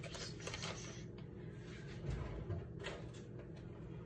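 Handling noises over a steady low hum: a few short clicks and knocks with crinkling as an orange plastic bag is picked up and handled.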